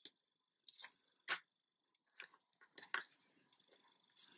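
Quiet, scattered clicks and rustles of paper letters backed with fun foam and card being handled on a cutting mat, a letter picked up by the fingers.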